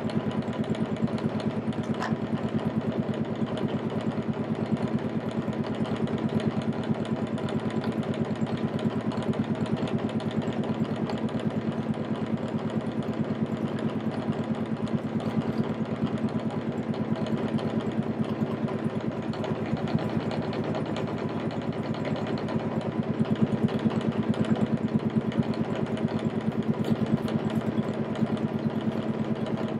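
Motorboat engine running steadily with an even hum.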